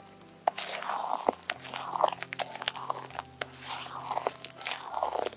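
Irregular crisp crunching and scraping sounds with many sharp clicks, starting about half a second in.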